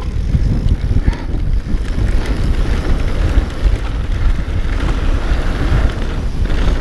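Wind buffeting the microphone as a mountain bike descends fast over a rough dirt and gravel track, with the tyres rumbling and irregular knocks and rattles from the bike over bumps.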